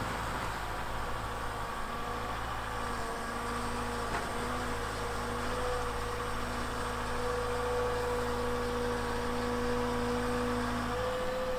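Volvo EWR150E wheel excavator's diesel engine and hydraulics running, as the boom lifts and swings its rotary sweeper brush on the tiltrotator. Over a steady low hum, a steady whining tone sets in about three seconds in and holds until near the end.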